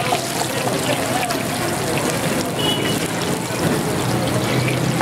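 Chapli kebab patties frying in a wide pan of hot oil, sizzling and crackling steadily.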